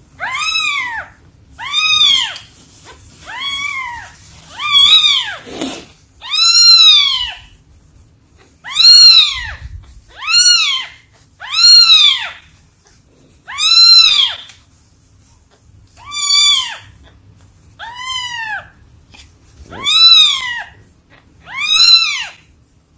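Newborn kitten yelling over and over: about thirteen loud, high calls, each roughly a second long and rising then falling in pitch. The uploader puts the yelling down to constipation.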